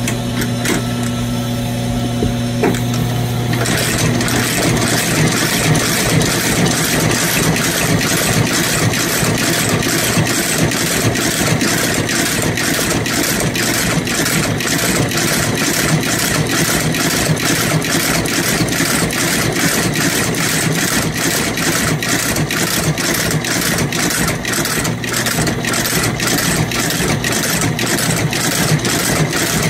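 A steady machine hum for the first few seconds, then an outsole stitching machine running, with a regular clatter of about two to three needle strokes a second as a new rubber half sole is stitched to the boot's welt.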